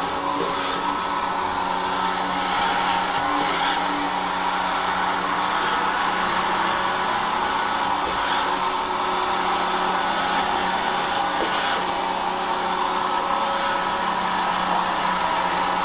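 Robot vacuum cleaner running: its motor and rotating brush make a steady hum over a hiss.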